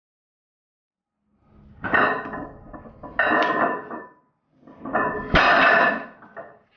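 A 220 kg barbell deadlift: the loaded steel bar and plates clank and rattle as the bar breaks from the floor and is pulled up, then again as it is lowered, ending in one sharp thud as the plates land on the platform about five seconds in.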